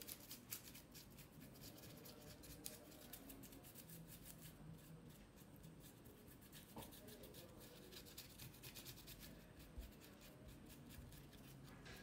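Faint, scratchy dabbing of a small paintbrush applying thick rust paste onto a crinkled tissue-paper-covered canvas: runs of quick, soft ticks.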